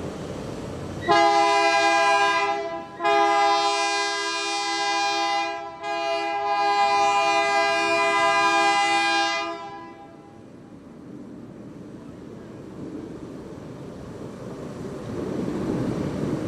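Diesel locomotive air horn sounding three blasts, each a steady chord of several notes, the last the longest. A low rumble follows and builds near the end.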